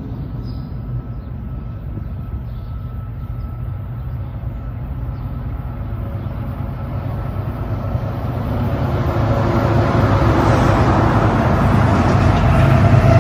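Diesel locomotives of an approaching BNSF freight train: a low rumble that grows steadily louder over the second half.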